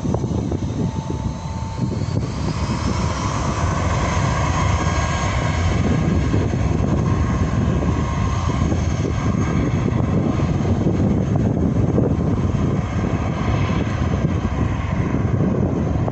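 Jet airliner's engines spooling up for takeoff, a whine rising in pitch a few seconds in, then a steady loud rush of engine noise as the plane rolls away down the runway.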